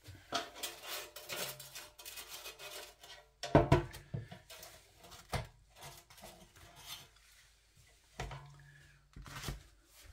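Clatter and knocks from handling a COSORI air fryer basket and lifting a toasted sandwich off its crisper grid. The sound is irregular, with several sharper knocks, the loudest about three and a half seconds in.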